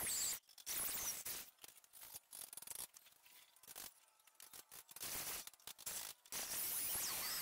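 Small homemade drill press drilling steel, its bit cutting with a harsh, hissy grinding. The sound breaks off and comes back several times and is weaker for a few seconds in the middle, while the bit is lifted from the work.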